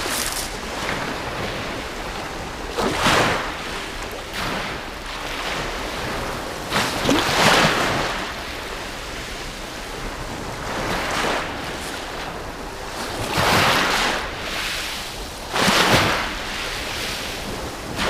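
Waves breaking on the beach, a steady rush of surf that swells and crashes about every two to four seconds.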